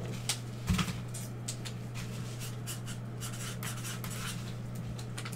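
Light handling noises on a desk: scattered small clicks, scrapes and rubs, with a soft knock a little under a second in, over a steady low hum.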